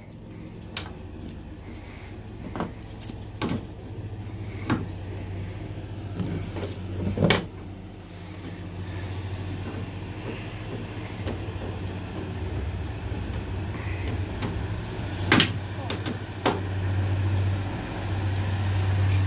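Ratchet wrench on a long extension driving a tail-light screw back in, with scattered sharp clicks and knocks from the tool and the light housing. A steady low vehicle hum runs underneath and grows louder near the end.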